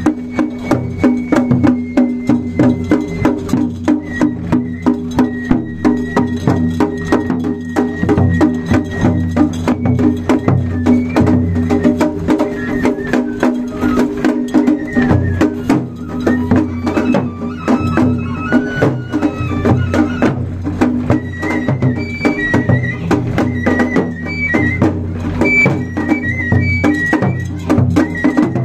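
Japanese festival float music: a large rope-bound barrel drum (taiko) struck with sticks in a fast, continuous rhythm of sharp strokes. A high melody line runs over the drumming.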